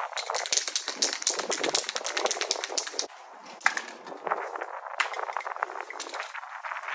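Aerosol spray paint can being shaken, its mixing ball rattling in a fast run of clicks for about three seconds. After that come scattered sharp clicks and clinks of cans and caps being handled.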